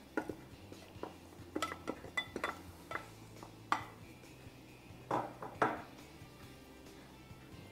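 Wooden spoon knocking and scraping minced garlic out of a small glass bowl into a metal skillet: a scattered string of light knocks and clinks, the loudest a little under four seconds in and around five seconds in.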